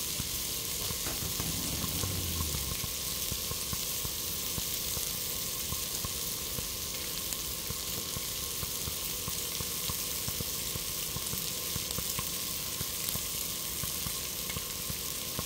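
Pork neck sizzling and crackling steadily on a hot grill.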